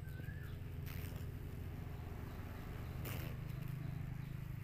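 Outdoor ambience: a steady low hum, with a bird's short whistled call that rises and falls at the very start and two brief rustles, about 1 and 3 seconds in.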